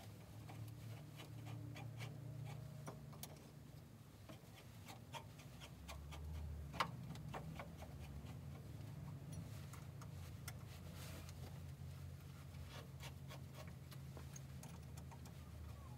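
Faint scattered clicks and light metallic knocks from parts and tools being handled while a Myford lathe's saddle is reassembled, with one sharp click about seven seconds in, over a low steady hum.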